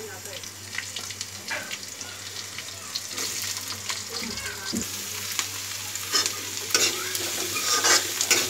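Chopped onions frying in hot oil in a metal kadhai. The sizzle grows louder about three seconds in as the onions go into the oil, then the onions are stirred, with scraping strokes against the pan.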